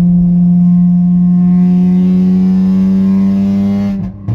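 Straight-piped V6 of a 2009 Honda Accord coupe with the exhaust cutout open, heard from inside the cabin: a loud, steady droning note under throttle. About four seconds in the throttle lifts and the note drops away, followed by a sharp pop from the exhaust.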